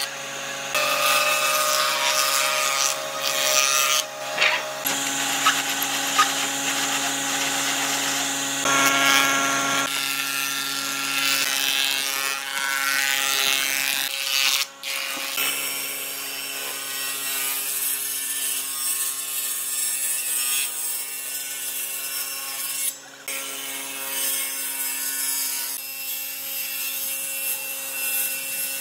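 Wood jointer-planer running, its cutterhead planing boards: a steady machine hum of several held tones under the rough noise of the knives cutting the wood. The sound changes abruptly several times, with two brief drops about fifteen and twenty-three seconds in.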